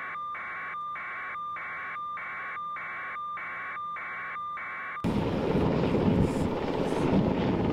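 Helicopter cabin noise carried over a narrow, radio-like aerial audio feed, with a steady whistling tone, chopped into pulses a little under twice a second. About five seconds in it cuts to louder, fuller noise of wind and breaking surf.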